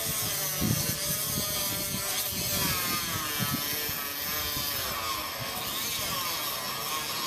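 Small handheld power tool running steadily, its whine wavering up and down in pitch.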